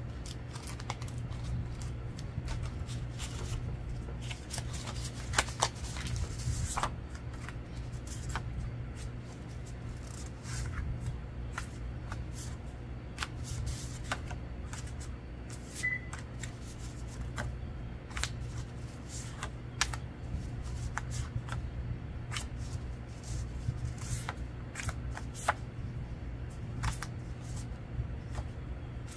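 Handmade paper oracle cards being handled and sorted by hand: irregular light clicks, taps and slides of card against card, over a steady low hum.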